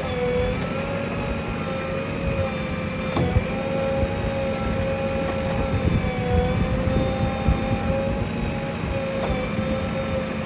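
JCB 3DX backhoe loader's diesel engine running steadily with a whine, its pitch dipping briefly a few times as it takes load while digging, with two short knocks from the working arm.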